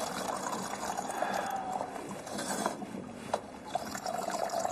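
Water running from a bottled-water dispenser into cups, with a sharp clink of a cup about three seconds in.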